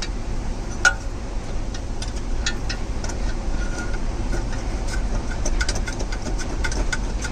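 Metal clicks of a socket wrench or ratchet, scattered and irregular at first, then closer together, as the bolts holding the console safe to the truck's chassis are tightened. A steady low rumble runs underneath.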